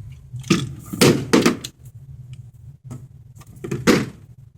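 Glock 21 .45 pistol being worked by hand to clear a stoppage: a few sharp metal clacks of the slide and magazine about half a second to a second and a half in, and another near the end.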